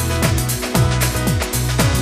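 Electronic background music with a steady kick-drum beat of about two beats a second over a sustained bass line.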